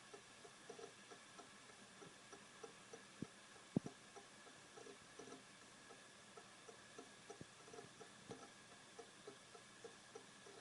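Western Digital Caviar Green 2TB (WD20EARS) hard drive clicking: faint light ticks a few times a second over a soft hiss, with one sharper, louder click about four seconds in.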